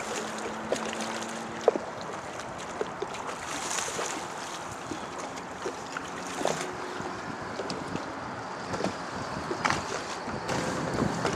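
Wind buffeting the microphone and water slapping the hull of an aluminum fishing boat, with scattered sharp knocks and clicks.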